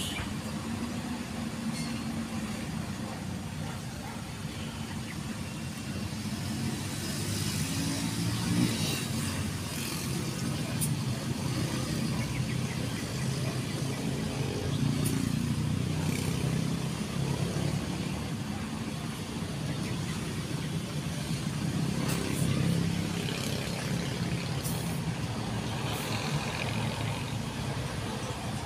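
Steady low rumble of a motor vehicle engine running nearby, with a few faint, brief scrapes.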